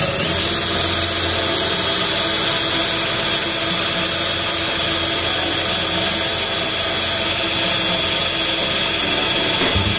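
Hand-held power drill running steadily as its twist bit bores a hole through an aluminium seat track rail, throwing off metal shavings.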